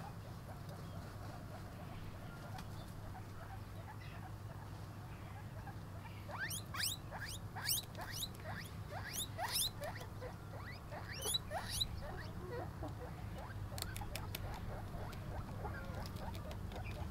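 Guinea pigs squeaking, a quick run of short rising squeaks from about six to twelve seconds in, while they chew and rustle fresh grass with a few faint crunching clicks.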